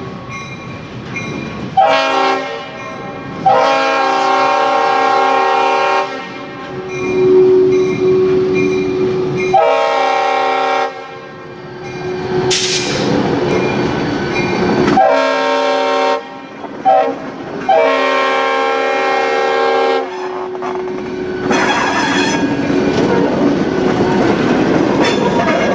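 CSX GP40-2 diesel locomotive sounding its air horn for a road grade crossing in about six blasts of different lengths, one of them short. Between the blasts and after the last one, the locomotives' EMD 16-cylinder two-stroke diesels and wheels are heard running past over the crossing.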